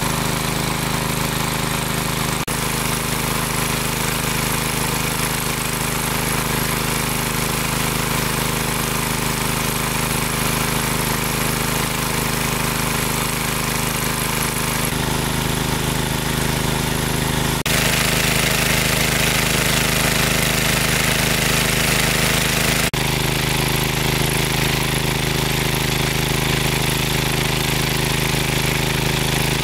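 Engine-driven water pump running steadily with a rattling engine note, pumping water out of a lake. Its tone shifts a few times.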